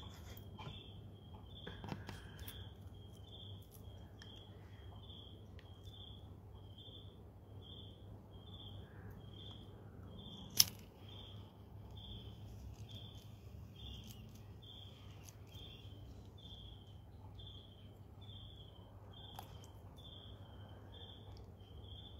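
Faint insect chirping, short high chirps repeating about one and a half times a second, over a low steady hum, with one sharp click about halfway through.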